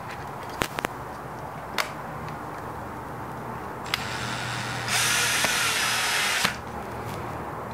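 Cordless drill-driver driving a screw into the motor plate of a coffee grinder's motor, running for about two and a half seconds. It starts about four seconds in, gets louder after a second and stops suddenly. A few sharp clicks come before it.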